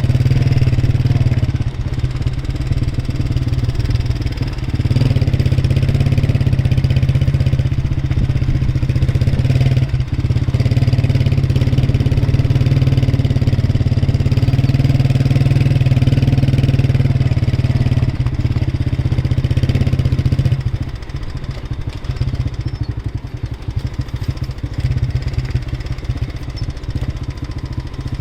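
A motor vehicle's engine running steadily with a low, rapidly pulsing drone, easing off to a quieter level about 21 seconds in.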